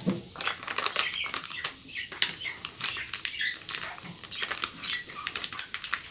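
Foil-lined Nestlé Cerelac sachet being folded and squeezed shut by hand, crinkling and rustling with many small crackles.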